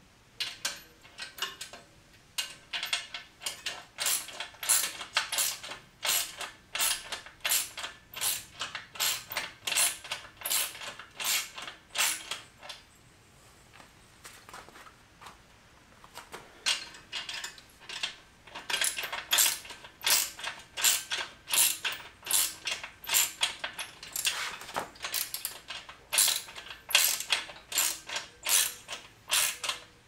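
Hand ratchet wrench clicking in quick back-and-forth strokes, about two a second, as bolts on the steel rack frame are tightened down. It stops for a few seconds about twelve seconds in, then starts again.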